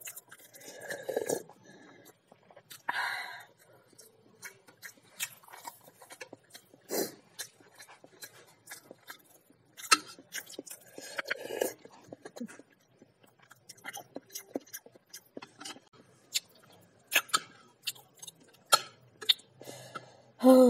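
Chewing and mouth sounds of someone eating, mixed with many sharp clicks of a metal spoon knocking and scraping in a bowl of boiled eggs.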